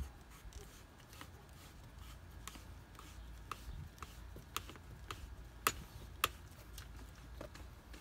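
Hands twisting and tightening a plastic 1-inch PVC union on a sprinkler riser pipe: scattered light clicks and rubbing, with two sharper clicks a little past the middle.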